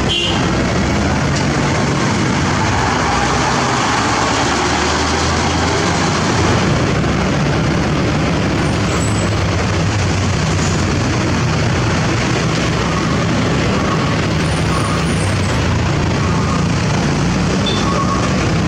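Heavy vehicle's diesel engine running steadily under a constant noisy haze.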